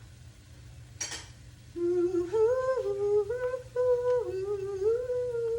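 A woman humming a short tune without words, stepping between a few held notes. A single sharp clink comes about a second in, just before the humming starts.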